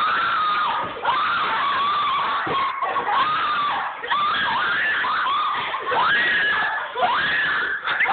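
A person screaming over and over: a string of long, high-pitched shrieks, each held about a second and often sliding up at the start.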